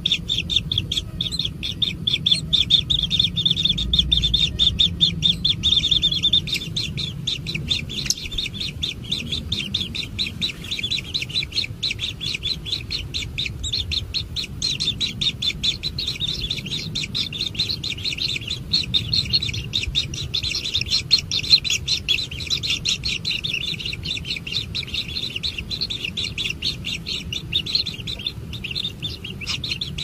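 White-throated kingfisher nestlings begging: a fast, unbroken run of high chirps, loudest over the first few seconds.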